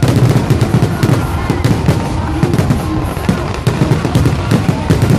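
Fireworks going off in quick succession, a dense, continuous run of bangs and crackles.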